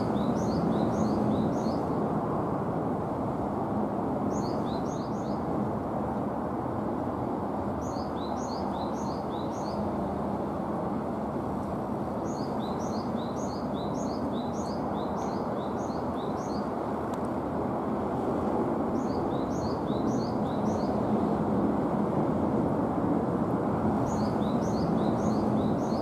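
Japanese tit singing: about six phrases of quick, high, repeated downslurred notes, with a longer run in the middle, over a steady low background hum.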